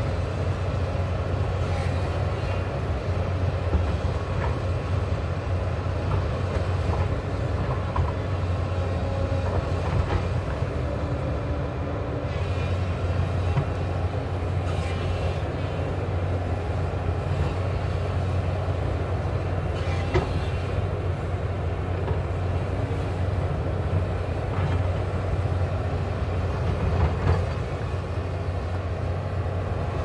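Hyundai crawler excavator's diesel engine running steadily under load as the machine digs into a hillside, with scattered brief knocks and scrapes from the bucket working the earth bank.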